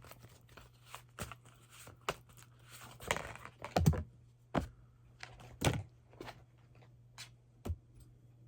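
A deck of oracle cards being shuffled and handled: scattered light taps and clicks with a few soft swishing rustles, the strongest about three to four seconds in and again near six seconds, over a faint steady low hum.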